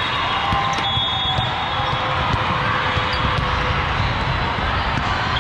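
Din of a busy indoor volleyball tournament hall: volleyballs being struck and bouncing across many courts over a steady crowd hum, with a few short, thin, high squeaks.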